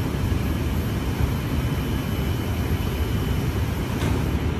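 Steady low rumble beside a standing JR East E531-series AC/DC electric train, from its running equipment and the station around it, with a brief sharp sound about four seconds in.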